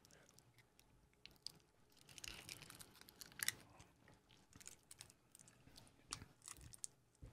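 Near silence, broken by faint scattered clicks and soft mouth sounds as small communion cups are sipped from and handled.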